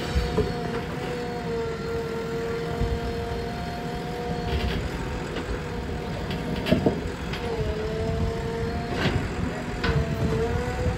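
JCB 3DX backhoe loader's diesel engine running, with a steady high whine that dips in pitch twice near the end. A few sharp clanks sound from the machine in the second half.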